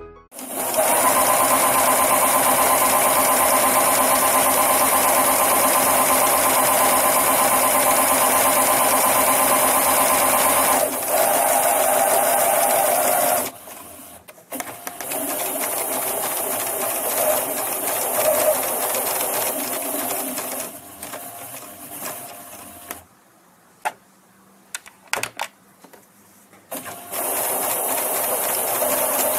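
Domestic electric sewing machine stitching through layered fabric and water-soluble stabiliser, running in long steady runs. It stops about 13 seconds in, runs again more quietly, pauses with a few sharp clicks, and starts up again near the end.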